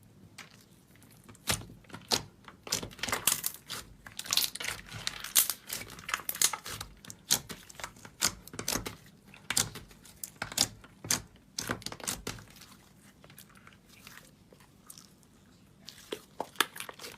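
Hands squeezing and poking slime, making a fast run of crackling, popping clicks. The clicks thin out for a few seconds and pick up again near the end.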